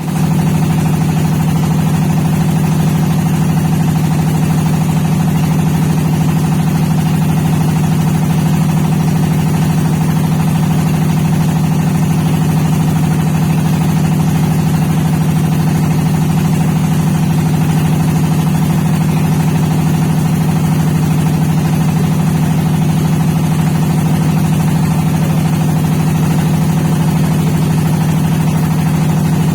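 An engine running steadily at an even speed, a constant low drone with no change in pitch or level.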